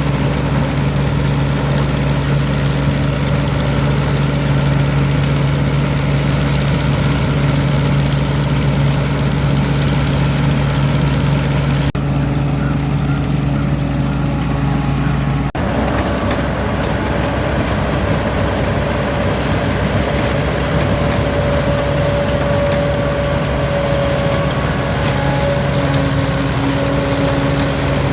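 Rice combine harvester's engine and machinery running steadily with a constant hum; the sound shifts abruptly a little past halfway.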